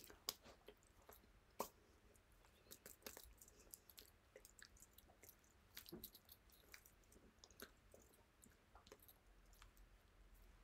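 Near silence, broken by faint, scattered clicks and taps from a person signing close to the microphone: hands meeting and lips smacking. The sharpest click comes about one and a half seconds in.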